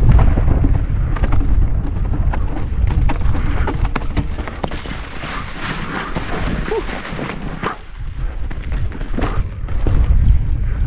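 Wind rumbling on a GoPro MAX's microphone as a mountain bike rides fast down a dirt trail, with frequent knocks and rattles from the bike on rough ground. About halfway in, the wind rumble drops and the tyres cross snow with a hissing crunch, before the rumble and rattling return near the end.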